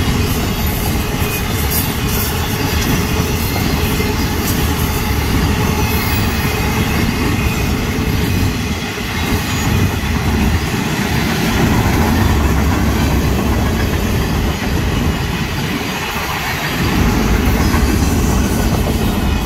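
Freight cars of a Florida East Coast Railway mixed freight train rolling past close by. There is a steady, loud rumble and rattle of steel wheels on the rails, with some clacking over rail joints in the first few seconds.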